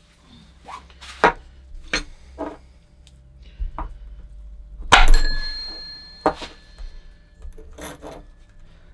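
Irregular knocks and clanks of metal on metal as a greased metal sleeve is worked into a polyurethane bush of a dog bone transmission mount at a bench vice. The loudest is a sharp clank about five seconds in that rings on briefly.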